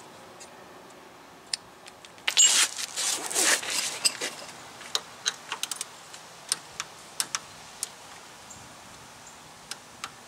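Torque wrench and socket working a leaf spring shackle bolt: a rattle of metal about two seconds in, then single sharp ratchet clicks, some in quick runs, as the bolt is tightened.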